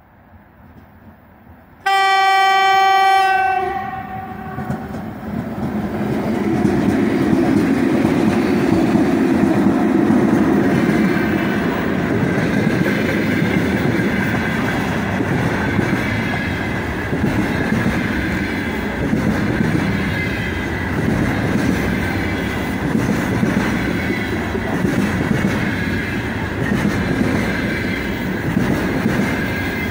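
3ES5K "Ermak" electric locomotive sounds its horn once, about two seconds in, for about two seconds. Then the locomotive and a long freight train of container flatcars roll past: a steady rumble of wheels on rail, with a clickety-clack over the rail joints.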